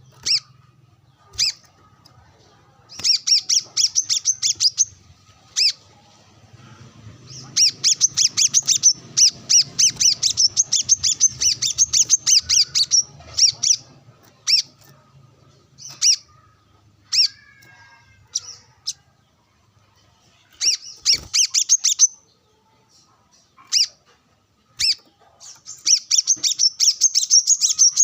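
Brown-throated sunbird singing vigorously: rapid runs of sharp, high chirping notes in bursts of a few seconds, separated by single notes.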